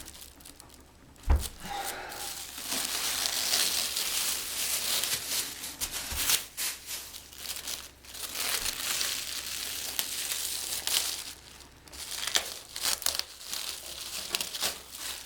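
Crinkling and tearing as the wrapping is pulled off the cured epoxy repair on a carbon fin blade, going on unevenly with pauses. A sharp knock about a second in is the loudest sound, with a smaller one near the middle.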